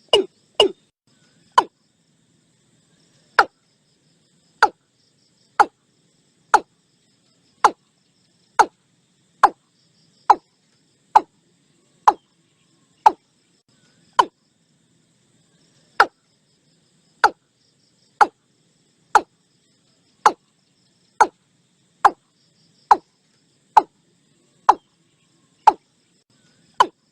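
Watercock calling: a series of short, sharp notes, each falling in pitch, repeated about once a second after a quick run of notes at the very start, with one longer pause about halfway through.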